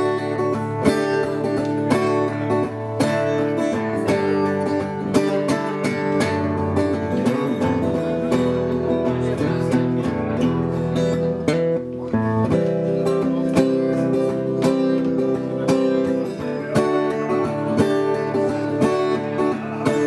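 Acoustic guitar strummed steadily in an instrumental passage, with no singing.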